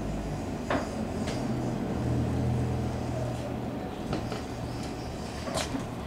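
Marker writing on a whiteboard: a few short, sharp taps and squeaks of the felt tip, over a steady low rumble that swells about two seconds in.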